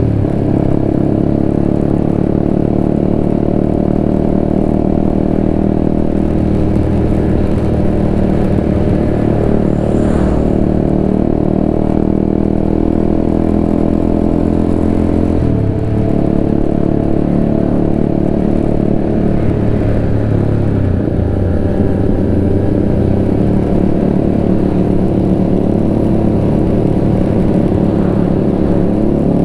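Honda CBR150R's single-cylinder engine running steadily while the bike is ridden along at speed, with road noise. Its note shifts in pitch about halfway through and again about two-thirds of the way in, as with gear changes or throttle changes.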